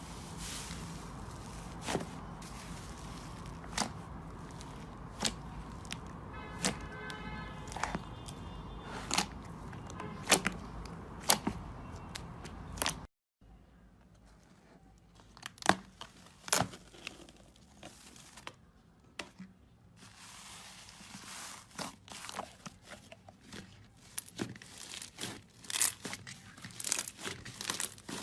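Slime being squeezed and stretched by hand, giving off irregular crackling and popping clicks. A steady background hum under the first half cuts off abruptly about thirteen seconds in, and the clicks become denser near the end.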